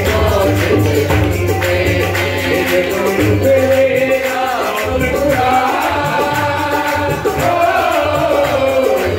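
Punjabi devotional song performed live: a man singing to harmonium accompaniment, with tabla drumming a steady rhythm.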